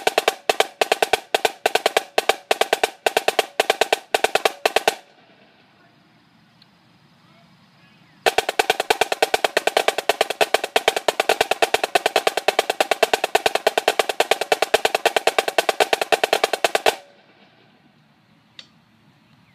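Marching snare drum played with sticks: a rhythmic pattern of sharp strokes that stops about five seconds in, then after a pause of about three seconds a long run of fast, even strokes lasting about nine seconds that cuts off suddenly.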